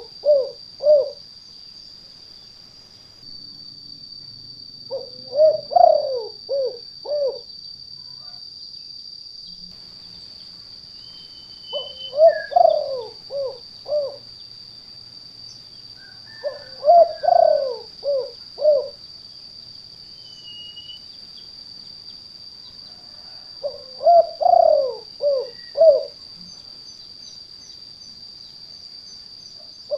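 Spotted dove (tekukur) cooing the 'kuk 2' call. A phrase of four or five coos repeats about every six seconds, five times in all, over a steady high-pitched whine.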